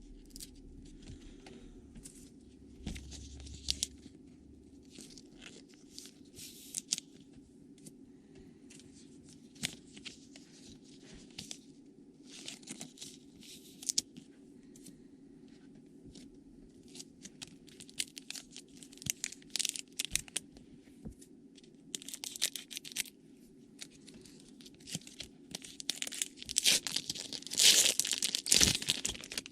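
Trading card pack wrappers being torn open and crinkled by hand, in short crackling bursts that grow busier and louder near the end, over a low steady hum.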